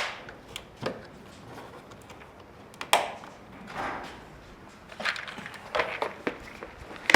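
Small plastic automotive clips and fasteners being handled and sorted from a parts tray: scattered sharp clicks and light knocks with bits of rustling.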